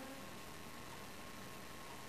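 Quiet room tone: a steady, even hiss with a faint constant high tone underneath, and no other sound standing out.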